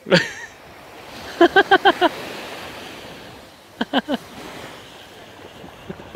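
Waves breaking and washing up on a sandy beach, a steady surf noise. A quick run of five short pitched calls cuts through about a second and a half in, and three more about four seconds in.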